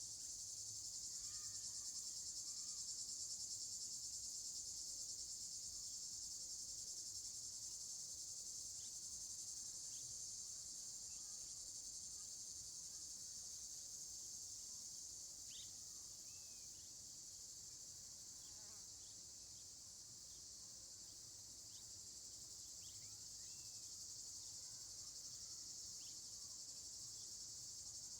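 Steady chorus of crickets, a dense high-pitched trill that holds throughout, with a few faint short chirps scattered through it.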